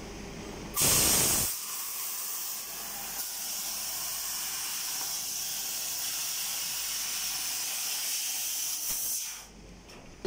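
6000 W IPG fiber laser cutting machine cutting 5 mm aluminum sheet. A loud burst of hissing comes about a second in, then the cutting head's assist-gas jet gives a steady high hiss that stops shortly before the end.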